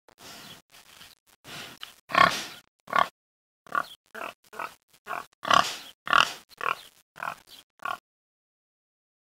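Wild boar grunts: a run of short, separate grunts, about fifteen in eight seconds, some louder than others.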